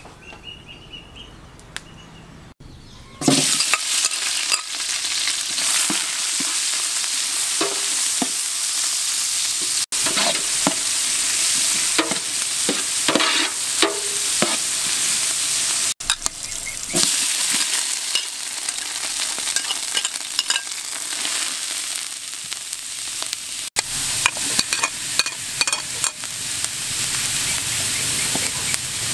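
Sliced red onions frying in hot oil in a metal pot, sizzling loudly while a metal spatula scrapes and stirs them. The sizzling starts suddenly about three seconds in.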